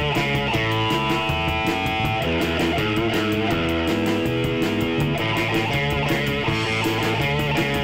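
Live rock trio playing: electric guitar over electric bass and a drum kit keeping a steady beat with cymbals.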